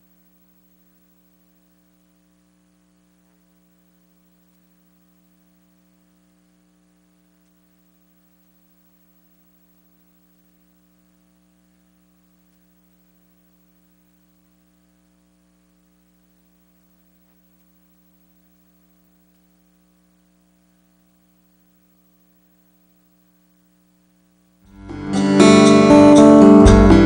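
Near silence with a faint steady electrical hum for most of the time. About 25 seconds in, guitar theme music starts suddenly and loudly.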